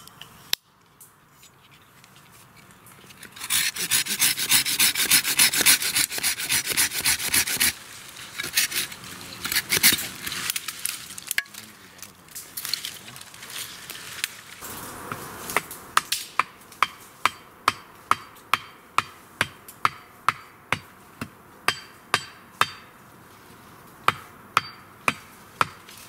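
A sapling trunk being sawn through by hand in quick strokes. Later comes a long run of sharp wooden knocks, about two a second with one short pause, as an upright wooden pole is struck on its top to drive it in.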